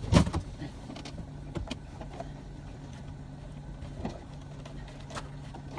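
Boat motor idling with a steady low hum. There is a loud thump right at the start and a few lighter knocks later, from the animal and gear bumping in the boat.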